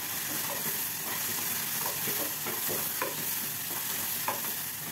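Onion-tomato masala sizzling in a nonstick saucepan, with a spatula stirring and scraping the pan in several short strokes as coriander powder is mixed into the frying vegetables.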